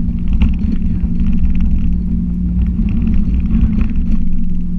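A car heard from inside the cabin while driving: engine and road noise as a steady low rumble with a constant hum.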